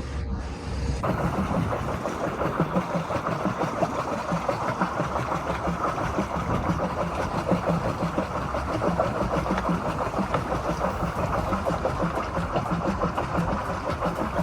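An engine running steadily with a fast, even chugging, cutting in abruptly about a second in.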